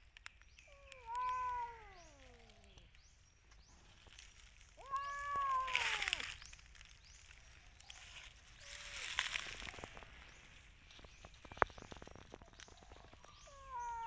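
A cat meowing three times: short calls that fall in pitch, about a second in, about five seconds in, and near the end. Between them come two bursts of rustling and a single sharp click.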